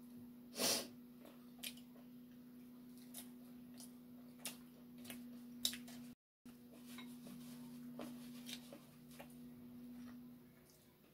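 Close-up eating sounds: chewing crispy fried chicken, with scattered crunches and mouth clicks, the loudest about half a second in. A steady low hum runs underneath, and the sound cuts out briefly about six seconds in.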